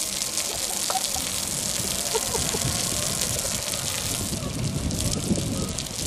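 Garden hose spray pattering and hissing onto a flat board laid over a bathtub.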